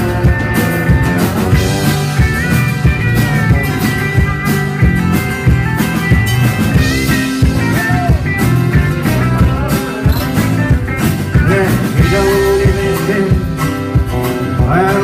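Live rock band playing: electric and acoustic guitars over a drum kit keeping a steady beat, with a lead guitar line bending its notes.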